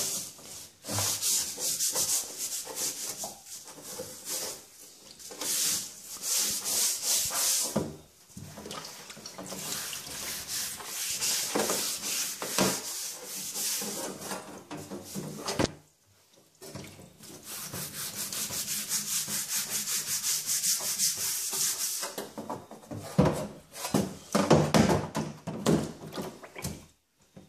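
Metal scourer pad scrubbing a wet steel handsaw blade in a vinegar bath, in rapid back-and-forth strokes with a brief pause about halfway through. The scrubbing takes off rust that the vinegar soak has loosened.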